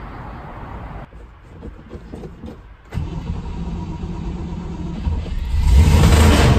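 1960 Cadillac Miller Meteor's V8 engine starting: it catches about three seconds in, runs, then revs up louder near the end.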